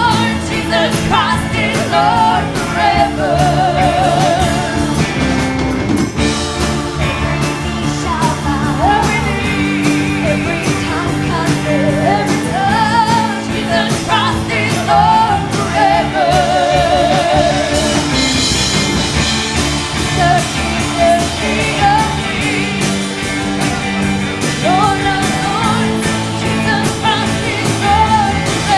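Church band music with a lead singer: the voice holds long wavering notes over steady chords and drums.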